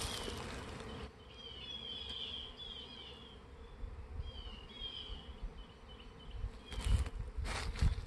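Faint, steady hum of a honeybee swarm flying in the air, with short high chirps over it in the first half and a few footsteps near the end.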